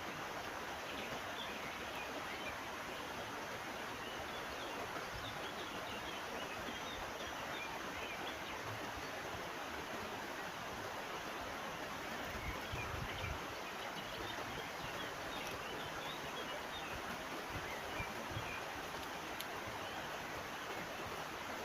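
Steady rushing of a river stream, with scattered faint bird chirps over it and a few soft low bumps about halfway through.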